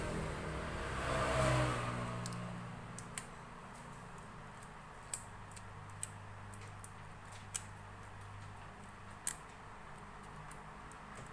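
A vehicle passing, a rumble that swells and fades within the first two seconds, then five or six small sharp clicks spaced one to two seconds apart from handling the phone's parts.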